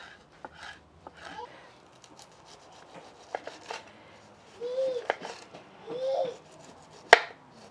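Knife chopping an onion on a wooden cutting board: irregular light taps of the blade on the board, with one sharp knock about seven seconds in. Two brief pitched sounds come in the middle.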